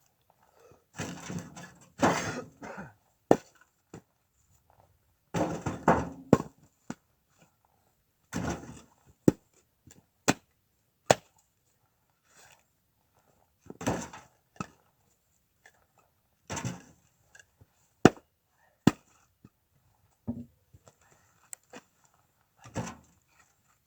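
Split firewood logs knocking and clattering as they are dropped and stacked onto a woodpile in a small barn: several rattling clusters of wooden knocks, as armloads are set down, between single sharp clacks of individual logs.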